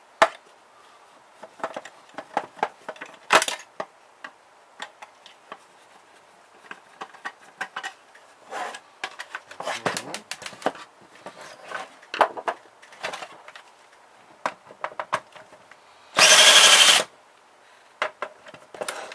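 Clicks and light clatter of small plastic and metal printer parts and screws being handled during disassembly, with one loud burst from a power drill lasting under a second about sixteen seconds in.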